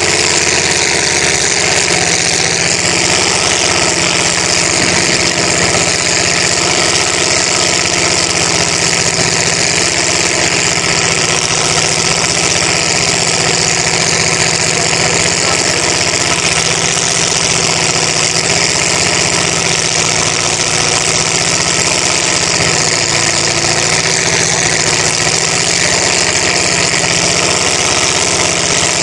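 Mud-bogging pickup truck's engine running steadily, its pitch wavering slightly, while the truck sits stuck in a deep mud pit with its tires spinning.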